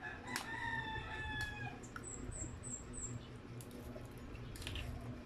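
A rooster crows once in the background, a single held call of about a second and a half starting a moment in, followed by four quick high chirps.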